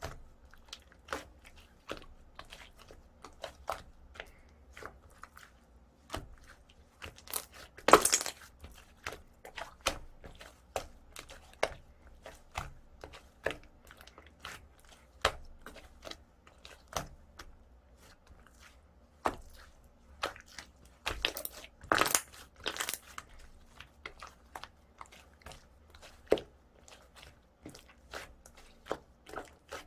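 Slime being pressed and stretched by hand, giving irregular sharp clicks and crackles as air pockets pop. There is a louder crackling burst about eight seconds in and another cluster around twenty-two seconds.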